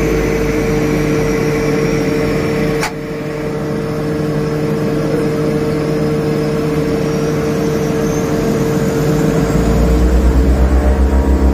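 Turboprop aircraft engines heard from inside the cockpit, running with a steady hum and a high whine. About three seconds in there is a sharp click and a brief dip in level. Near the end the engines get louder with a rhythmic low throbbing as power comes up.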